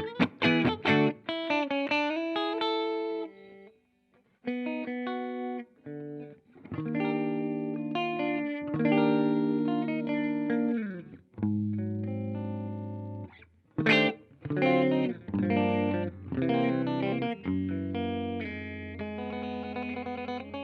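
Clean-ish electric guitar, a Fender Jazzmaster, playing notes and chords through a Ground Control Serpens optical compressor, which evens out the playing dynamics quite a bit. The phrases are separated by brief silent gaps.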